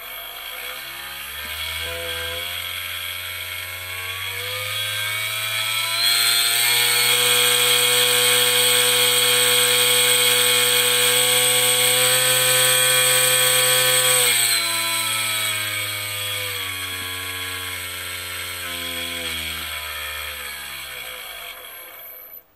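Reciprocating needle cutter running, its small brushless outrunner motor turning a crank that drives the needle back and forth: a buzzing hum with a high whine over it. The speed rises in steps to full about six seconds in, holds there, then steps back down from about fourteen seconds and stops just before the end.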